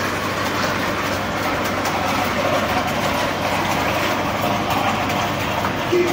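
Industrial meat mincer running steadily, its motor and feed screw forcing meat through the cutting plate; an even, continuous machine noise.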